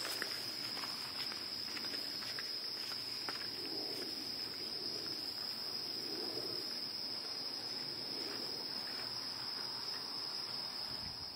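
Crickets trilling in one steady, unbroken high-pitched drone.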